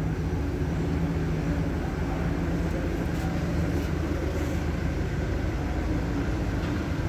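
Steady low mechanical hum of a running engine or machine, with no clear pauses or impacts.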